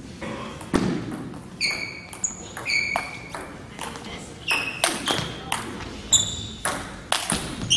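Table tennis rally: the ping pong ball is struck back and forth off the bats and table about twice a second. Each hit is a sharp click with a short high ringing ping.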